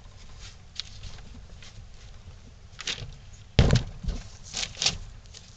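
Cloth rag rubbing and wiping over clamped wooden pieces, with light knocks from the metal bar clamps and one loud thump about three and a half seconds in.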